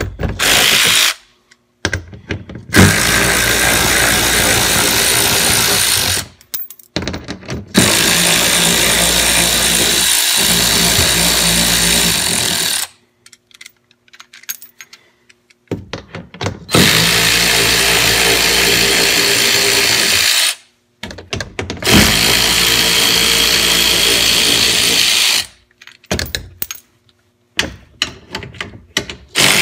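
Harbor Freight Earthquake XT 12-volt cordless 3/8-inch ratchet whirring as it spins out the underbody panel's bolts. It comes in four steady runs of several seconds each. Between runs are short pauses with clicks and knocks as the ratchet is moved to the next bolt.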